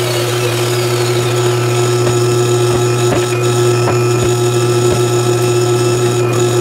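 Wood-Mizer LT50 band sawmill running with a steady hum, with a few light knocks in the middle.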